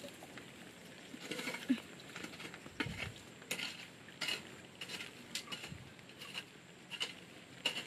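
A long-handled garden tool scraping and scuffing dry soil in irregular strokes, roughly one a second.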